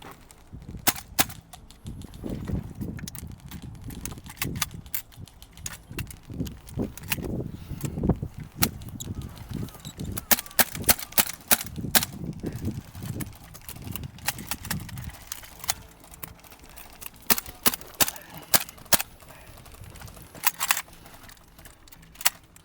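Airsoft guns firing: sharp cracks, some single and some in quick strings, loudest in clusters around the middle and near the end. A low rumble of movement runs under the first two-thirds.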